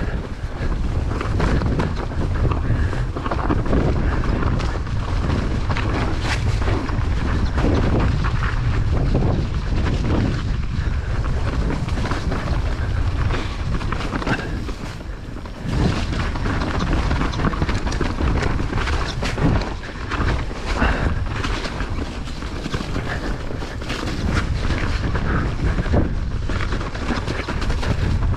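Wind buffeting the microphone while a mountain bike rides a rough, muddy trail, with a constant low rumble and frequent knocks and rattles from the bike jolting over the ground. There is a hard knock about halfway through.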